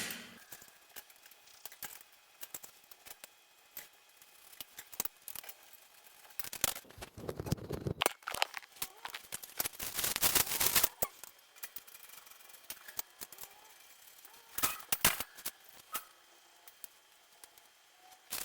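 Shelving parts being handled and fitted together: scattered clicks and knocks, with a few stretches of scraping and rustling, the loudest about halfway through.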